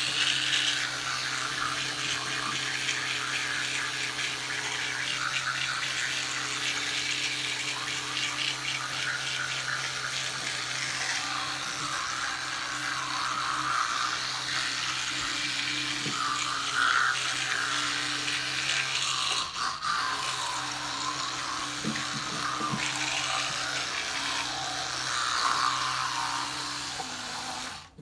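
Electric toothbrush running with a steady low hum while scrubbing teeth, with wet brushing noise through a mouthful of toothpaste foam; the motor switches off just before the end.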